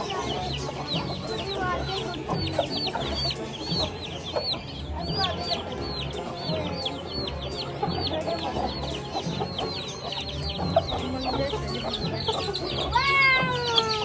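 A brood of baby chicks peeping continuously, many short falling chirps overlapping, with lower clucking from a hen among them. Near the end comes a louder, longer call that falls in pitch.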